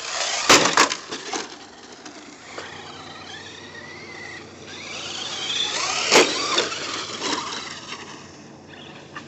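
Battery-electric Traxxas 4x4 RC car driving over dirt jumps, its motor whine rising and falling in pitch with the throttle over the noise of the tyres on dirt. Sharp knocks come about half a second in and again about six seconds in.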